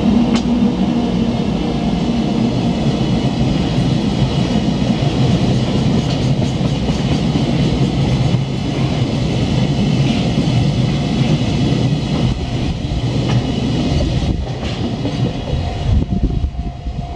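Freight train hauled by two JR EF64 electric locomotives rolling past at close range: a steady, loud rumble of steel wheels on rail with scattered clicks over the rail joints.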